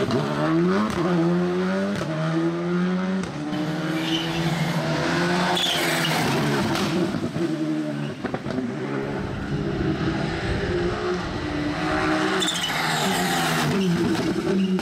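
Skoda Fabia Rally2 cars' turbocharged four-cylinder engines driven hard past, one car after another, the pitch climbing through each gear and dropping at every shift. Tyre noise on wet tarmac sits under the engine.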